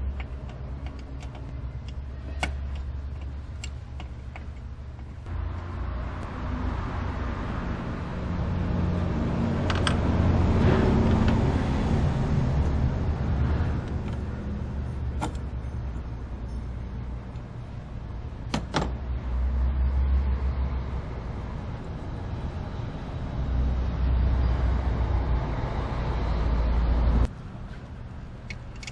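Steady low rumble of a running motor vehicle engine. It swells and eases back twice and cuts off suddenly near the end. A few sharp metallic clicks from wrench work on the master cylinder fittings sound over it.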